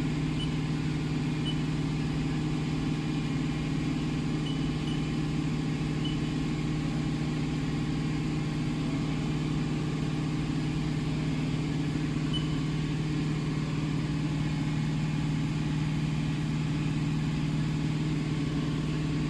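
Steady, unchanging low hum of powered machinery, with a few faint high ticks.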